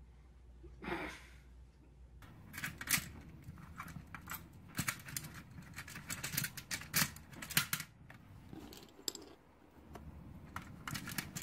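Plastic Connect Four discs clicking and clattering as they are handled and dropped into the upright plastic grid: a run of sharp, irregular clicks. A brief rustle comes about a second in, before the clicking starts.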